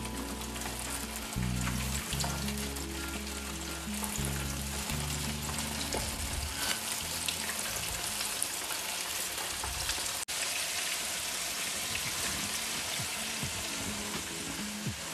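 Fish coated in corn flour frying in hot oil, with a steady crackling sizzle.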